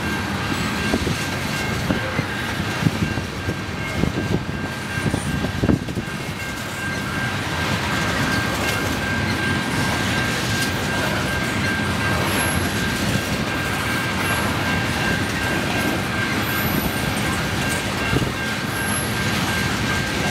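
Freight train's tank cars rolling past steadily, wheels rumbling and clattering on the rails, with sharper knocks mostly in the first few seconds. A thin, steady high ring runs underneath.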